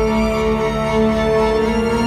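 Electronic dance music: sustained synth chords held over a deep, pulsing bass.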